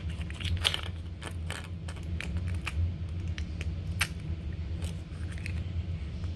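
Slime or putty being squeezed and worked by hand, making irregular small clicks and pops, over a steady low hum.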